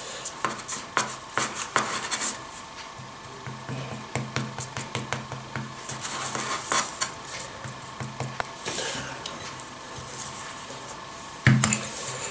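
Kitchen knife tapping and scraping on a plastic cutting board while fingers press and smooth soft mashed potato, in scattered light clicks and rubs. A louder knock near the end.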